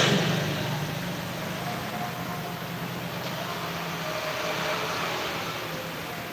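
A steady low mechanical hum under a faint even hiss, with no distinct events.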